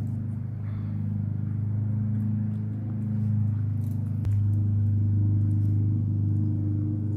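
A steady low motor hum that gets louder suddenly, with a click, about four seconds in.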